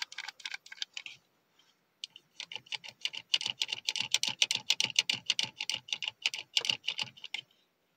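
A Groot Happy Meal toy's button being pressed over and over, its plastic arm mechanism clicking as Groot's arm swings. There are a few clicks, a short pause, then a fast run of clicks lasting about five seconds.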